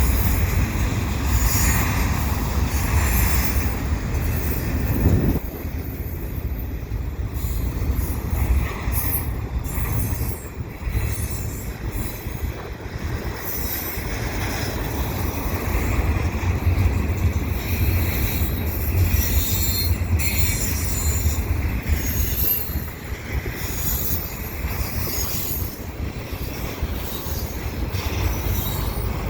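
Double-stack container cars of a CN freight train rolling past: a steady low rumble of wheels on rail, with high wheel squeal coming and going, strongest near the start and again about two-thirds of the way through.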